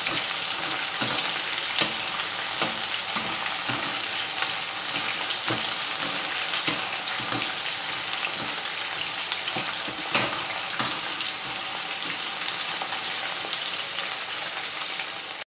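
Batter-coated prawns deep-frying in hot oil in a kadhai, stirred with a wire spider strainer: a steady sizzle with scattered sharp clicks and crackles. It cuts off suddenly near the end.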